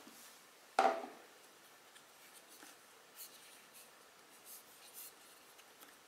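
Handling noise from a small metal-cased QCY A10 Bluetooth speaker: a single knock about a second in, then faint rubbing and small clicks as it is turned over in the hands.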